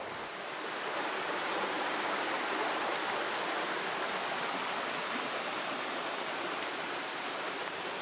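Steady rush of a small waterfall cascading over rocks, an even hiss with little deep rumble.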